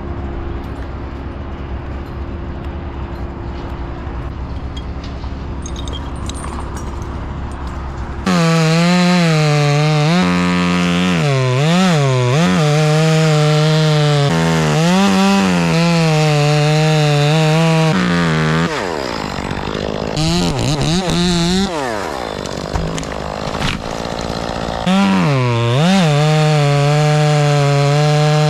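Two-stroke chainsaw: it runs low for about eight seconds, then opens to full throttle and cuts, its pitch sagging and recovering again and again as the chain bites into wood. About two-thirds of the way in it drops off and revs back up several times, then runs at full throttle again near the end.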